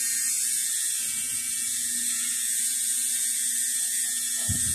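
Electric tattoo machine running steadily with a high-pitched whir and a faint low hum underneath as the needle works ink into the skin.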